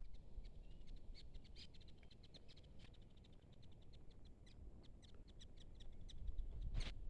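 Many short, high chirps from small wild creatures, coming irregularly several times a second, over a faint low rumble; near the end a louder rustling noise.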